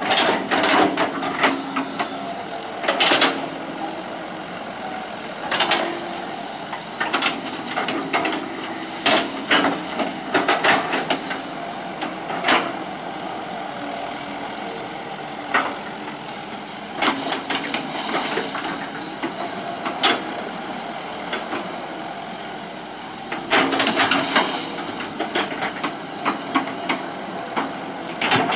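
Hitachi EX120 hydraulic excavator's diesel engine running steadily, with repeated sharp clanks and knocks from the working machine, coming in clusters.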